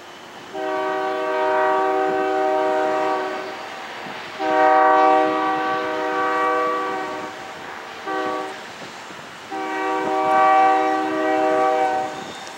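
BNSF diesel locomotive's air horn sounding a chord in four blasts, long, long, short, long: the standard signal for approaching a grade crossing.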